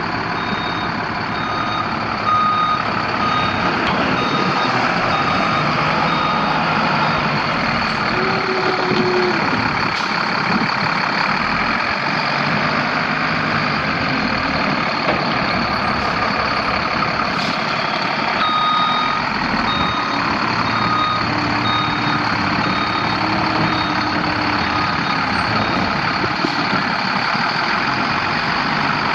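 A 2000 Freightliner FL70 refuse truck's Cummins ISC 8.3 L inline-six diesel running, with its backup alarm beeping about once a second as it reverses. The beeping comes in two spells, one in the first several seconds and one from about two-thirds of the way through.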